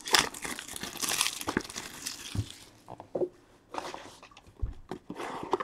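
Wrapping crinkling and tearing as a sealed trading-card box is opened, a dense crackle for the first couple of seconds, then softer scattered crinkles and small clicks.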